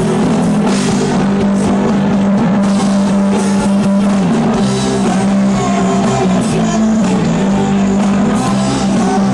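Live rock band playing loudly: electric guitars, bass and drum kit together, with a strong sustained bass line that shifts to a new note about four seconds in.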